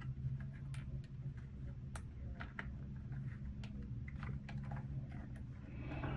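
Scattered light clicks and taps of small plastic model-kit parts being handled and pressed into place, over a steady low hum.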